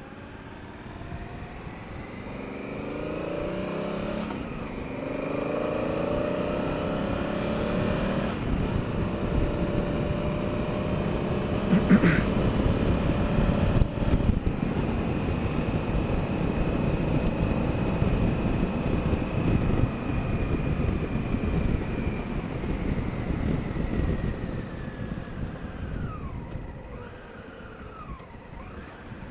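Honda Africa Twin CRF1000L's parallel-twin engine pulling away and accelerating, its pitch rising in steps through the first eight seconds or so, then running steadily at riding speed under a rush of wind and road noise before easing off near the end. A sharp knock stands out about twelve seconds in.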